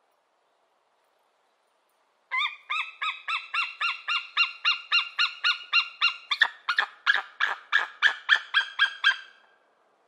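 White-tailed eagle calling: a long series of about twenty short yelping notes, some three a second, that begins a couple of seconds in and quickens in its second half before stopping near the end.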